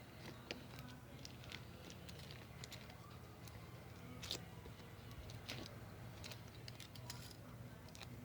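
Foil slime being squeezed and poked, giving scattered small sticky clicks and crackles at irregular intervals over a low steady hum.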